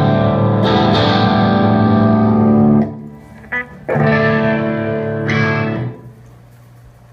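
Electric guitar playing ringing chords: one is held for nearly three seconds and cut off, and after a short pluck a second chord rings for about two seconds. A low steady hum remains once it stops.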